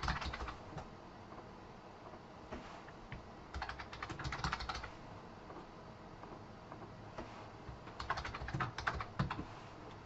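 Typing on a computer keyboard in three short bursts of keystrokes: one at the start, one about four seconds in, and one about eight to nine seconds in.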